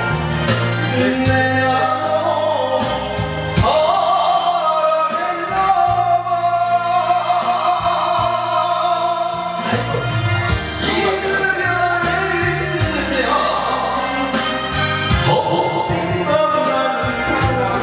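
A man singing karaoke into a handheld microphone over a backing track, his voice amplified through the room's loudspeakers.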